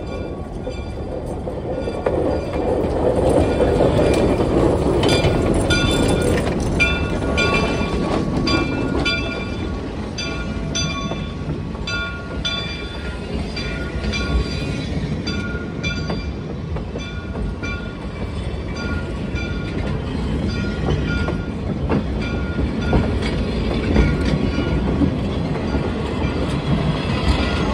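Railroad cars of a steam train rolling past close by, steel wheels clicking over the rail joints with a steady rumble. High squeals from the wheels come and go throughout.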